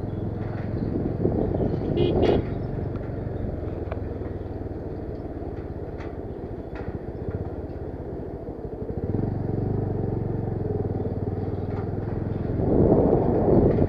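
Motorcycle engine running under way on a ride, getting louder about nine seconds in, with a louder rushing noise near the end.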